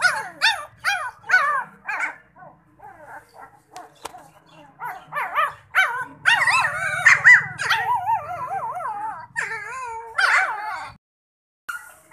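Central Asian shepherd puppies whimpering and yelping: a quick run of short high yips, then a longer stretch of overlapping high, wavering whines and cries. The sound cuts off about a second before the end.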